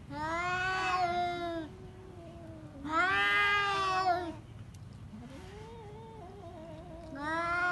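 Two cats yowling at each other in a standoff before a fight: three long drawn-out wails, each about a second and a half, with a fainter, lower wavering moan between the second and third.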